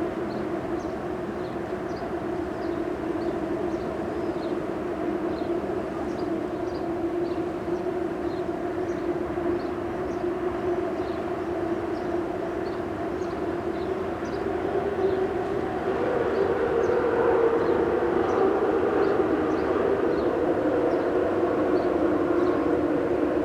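Steady droning hum of a bridge, holding two tones. It grows louder and fuller about two-thirds of the way in.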